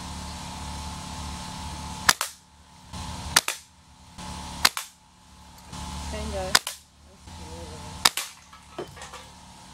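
Five sharp cracks about one and a half seconds apart: BBs from a Daisy Grizzly single-pump air rifle hitting an aluminium drink can with an axe head balanced on top.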